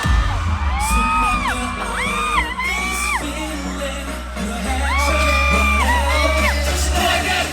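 A K-pop song playing loud over a concert sound system, with heavy bass and a high melody line of held, arching notes in two phrases. Faint whoops from the crowd can be heard.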